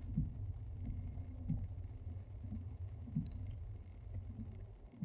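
Low steady rumble of a car driving on a wet street, picked up inside the cabin, with scattered light ticks at irregular intervals.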